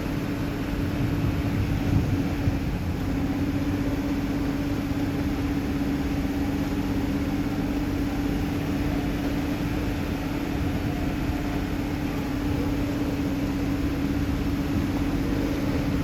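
Vehicle engine running steadily at an unchanging speed: a low rumble with a constant hum.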